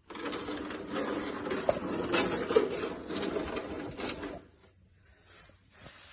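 Used engine oil pouring and gurgling into a container, starting abruptly and stopping after about four seconds.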